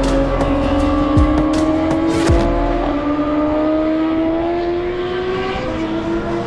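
Sport motorcycle engine accelerating hard on the circuit. Its pitch rises steadily, then drops at an upshift near the end and starts climbing again.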